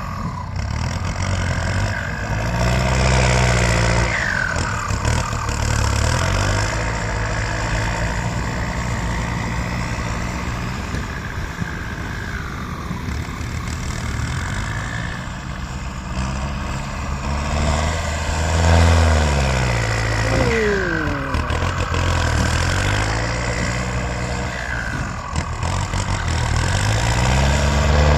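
Kubota M6240 tractor's diesel engine running under load, its speed rising and falling several times, most strongly about three seconds in, in the second half, and again near the end.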